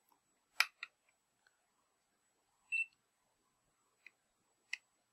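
Plastic button and trigger clicks of a DT-500 handheld infrared thermometer, two close together near the start and two more near the end. About three seconds in, a single short electronic beep from the thermometer as it switches on.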